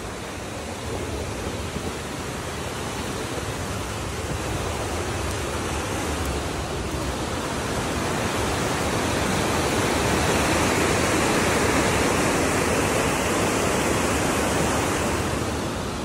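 Steady rush of falling water from a waterfall, growing gradually louder over the first ten seconds or so and easing a little near the end.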